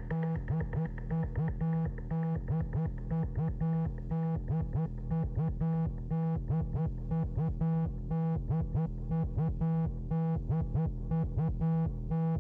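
Electronic tech house music from a Novation Circuit Tracks groovebox: a quick, evenly repeating synth pattern over a held low bass note, without the full drums.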